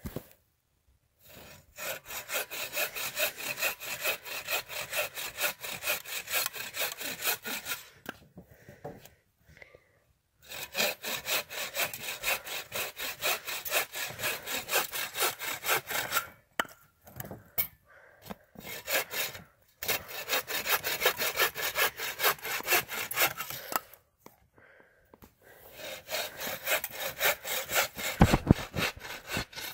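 Agawa Canyon Boreal 21 folding bow saw cutting through a dead stick in quick push-pull strokes, in four bouts with short pauses between them. A few low knocks sound near the end.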